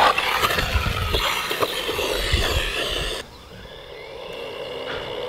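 Brushless motor of an MJX 16207 Hyper Go RC buggy whining and changing pitch with the throttle, with low thumps as the car tumbles beside the ramp. About three seconds in the sound cuts to a quieter stretch where the motor's whine is fainter and rises as the car accelerates.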